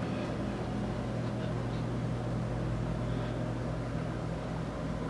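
Steady low mechanical hum with a droning tone, heard inside a railroad dome passenger car.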